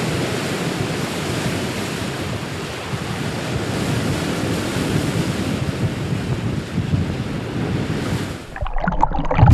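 Steady rushing noise of wind and ocean waves, heavy in the low end, cutting off abruptly about eight and a half seconds in.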